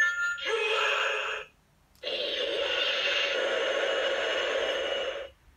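Ultraman Cosmos Eclipse Mode sound figure playing electronic sound effects from its built-in speaker in story mode. There is a short noisy burst of about a second, then after a brief pause a longer rushing sound of about three seconds that cuts off near the end.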